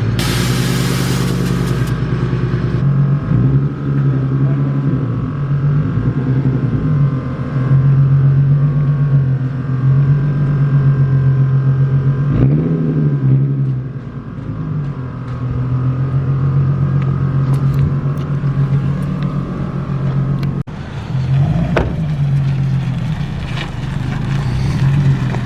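Car engine running while driving, a steady drone whose pitch briefly rises and falls about halfway through and again near the end.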